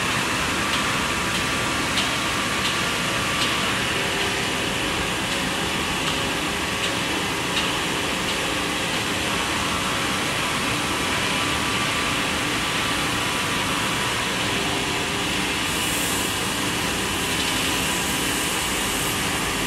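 Woodmaster WM-1500A2 two-spindle CNC wood lathe running, its spindles turning wooden blanks against the cutters: a steady machine hum with a cutting hiss. A few light clicks sound in the first half.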